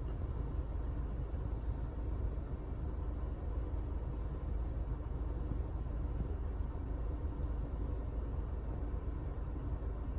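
Steady low rumble with a faint hiss inside a parked car's cabin, with no speech or distinct events.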